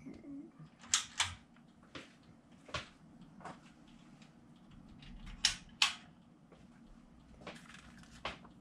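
Scattered sharp clicks and knocks from hands handling equipment on a workbench, about nine at uneven intervals, over a faint low steady hum.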